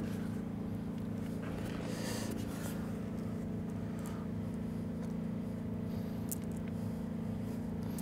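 A steady low mechanical hum, with faint scattered rustles and clicks as the rubber pond liner and bolts are handled.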